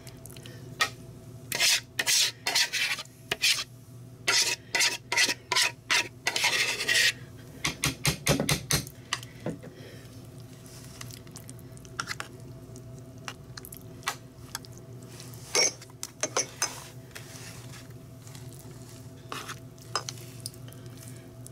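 Metal spoon scraping and spreading a thick, creamy casserole mixture over squash in a metal baking pan: quick clusters of rasping strokes for the first nine seconds or so, then sparser scrapes.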